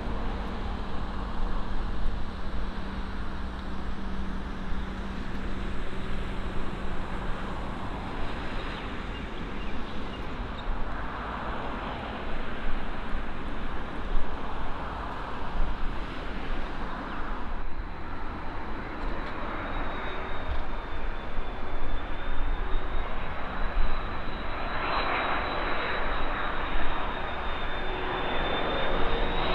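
Airliner engines running on the airfield: a steady noise, with a high whine that comes in about two-thirds of the way through and rises slightly, and the sound growing louder near the end.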